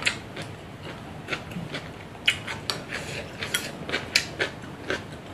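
Chopsticks clicking and scraping against a small ceramic rice bowl while eating, about a dozen short, irregular clicks.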